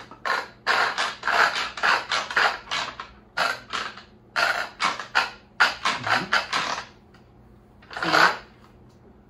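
Plastic Pampered Chef manual food processor being worked by hand, its push handle and parts giving quick rasping clicks, about three a second. They stop about seven seconds in, and one louder rasp follows a second later.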